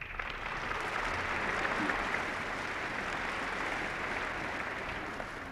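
Audience applauding, starting at once, holding steady and then slowly dying away near the end.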